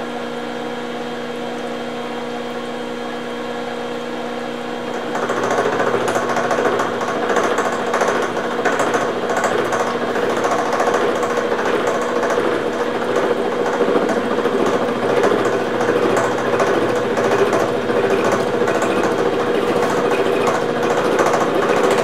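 Milling machine with a gear cutter running, steady at first; about five seconds in the cutter bites into the silicon-bronze-repaired gear under power feed, and a loud, rough cutting noise carries on steadily. This is the first pass at 200 RPM.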